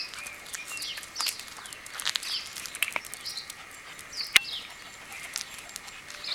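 Small birds chirping over and over in short, falling calls, with a sharp click about four seconds in.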